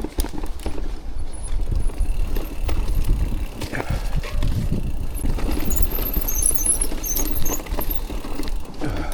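Mountain bike rolling down a dirt trail: tyre noise and rumble with the frame and chain rattling and knocking over roots and bumps, and wind buffeting the mic. A cluster of short high squeaks comes about two-thirds of the way through.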